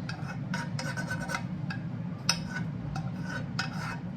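A spoon scraping against cookware in a run of short, uneven rasping strokes, working stuck pieces loose, with one sharper knock about two seconds in.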